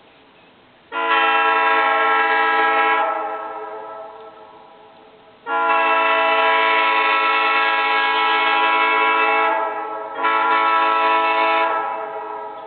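Homemade train air horn set built from 4-inch PVC reducers and pipe, a copy of a Nathan Airchime M3, sounding a steady multi-note chord in three blasts: one of about two seconds, a longer one of about four seconds, then a short one. Each blast trails off slowly after it stops.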